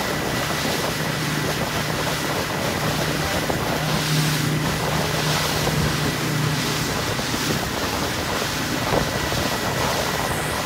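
Motorboat under way, its engine a steady low hum beneath the rush of wind on the microphone and water along the hull.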